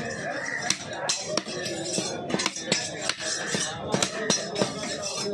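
A large knife chopping paarai (trevally) fish into chunks on a wooden chopping block. It makes a quick, irregular run of sharp chops, about two or three a second.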